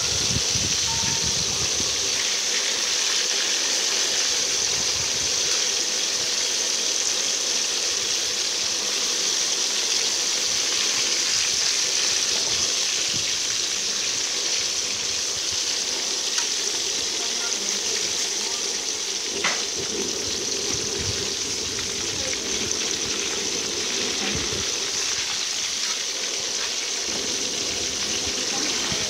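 Small whole fish deep-frying in hot oil in a steel wok: a steady sizzle throughout. A metal utensil clinks once against the wok about two-thirds of the way in.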